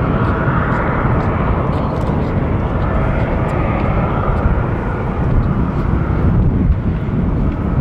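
Airbus A330-300's twin Pratt & Whitney PW4000 turbofans running at taxi power as the jet turns onto the runway: a steady jet whine over a broad rumble.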